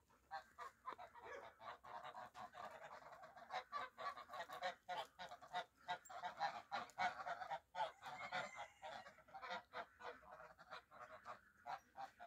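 A flock of domestic geese honking, many short overlapping calls.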